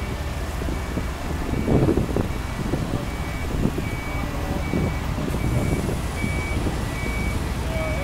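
Heavy diesel equipment running with a low rumble while a backup alarm beeps steadily, a little more than once a second.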